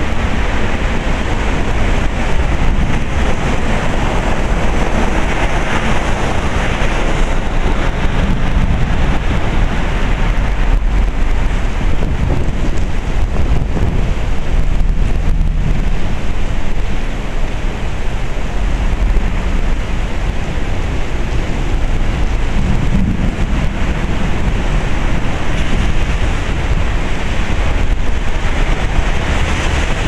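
Torrential typhoon rain pouring down as a steady loud rush, with a low rumble of gusting wind on the microphone.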